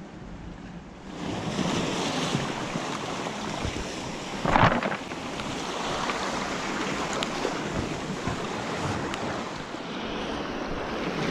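Sea surf washing against the shore, with wind buffeting the microphone. The steady wash of water builds about a second in, and there is one louder rush about four and a half seconds in.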